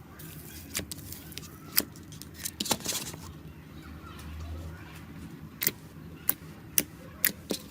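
Slime being pressed and pulled by hand, giving sharp scattered pops and clicks over a steady low hum.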